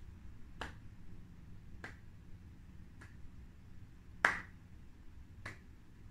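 Five finger snaps a little over a second apart, keeping a steady beat for the breathing count; the one about four seconds in is the loudest.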